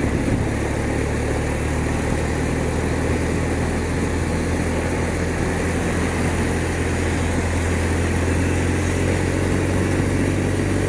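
BMW R1200RT's boxer-twin engine running steadily as the motorcycle rides along, under a steady rush of wind and wet-road noise on the bike-mounted microphone.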